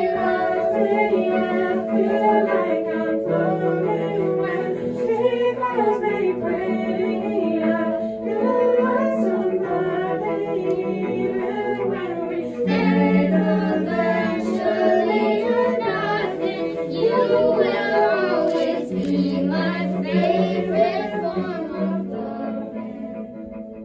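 A group of young voices singing a song together over held keyboard and cello notes, dying away near the end.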